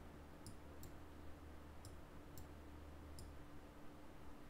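Faint computer mouse clicks, about five scattered over a few seconds, over a faint steady hum.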